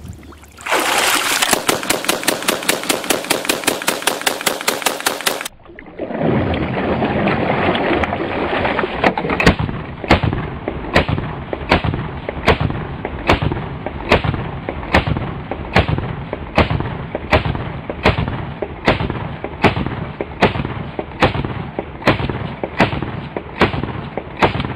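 AA-12 fully automatic 12-gauge shotgun firing a rapid burst of about five seconds, just after being pulled out of water where it lay submerged for about ten minutes: it still cycles and fires. After a brief break comes a long run of duller, deeper shots at an even pace of about two a second.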